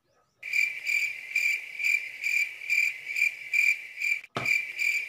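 Crickets chirping: a steady high-pitched trill pulsing about twice a second, cutting in abruptly about half a second in and dropping out for an instant near the end.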